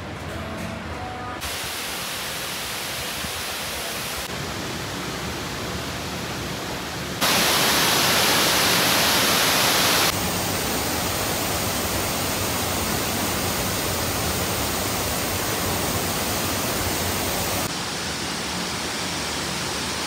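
Steady rushing noise of a waterfall and rain falling on a pond, in several short clips. The level steps up and down abruptly at each cut, loudest for about three seconds near the middle.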